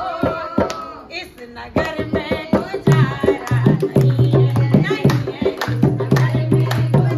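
Group of women singing a devotional bhajan to rhythmic hand clapping and a dholak drum. The dholak's low booming strokes come in about three seconds in, under a steady beat of claps.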